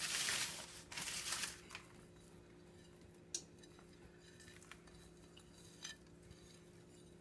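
Two short rustling scrapes as the last cracker crumbs are emptied over the haddock fillets, then a single sharp click a little over three seconds in and a few faint ticks, over a faint steady hum.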